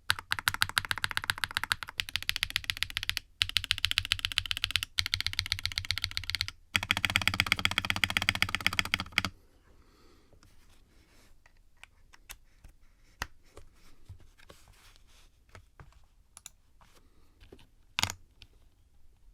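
Typing sound test on a budget 60% mechanical keyboard, gummy O-ring mounted with silicone cord, on an FR4 half plate with KTT Rose linear switches: fast continuous keystrokes for about nine seconds with a few brief pauses, then scattered single key presses, one louder press near the end.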